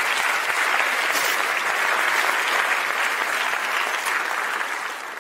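Large audience applauding steadily, the clapping beginning to die away near the end.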